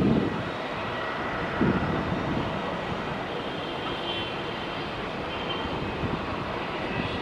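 Distant jet engines of a Boeing 777-300ER rolling out on the runway after landing: a steady rush with a faint high whine. Brief low gusts of wind hit the microphone at the start and again about a second and a half in.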